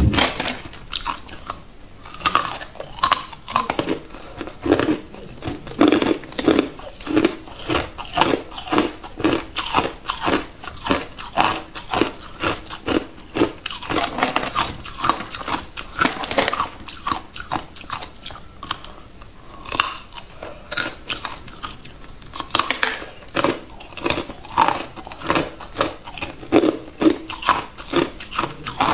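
A person biting and chewing hard ice cubes: a continuous rapid series of crisp crunches, several a second.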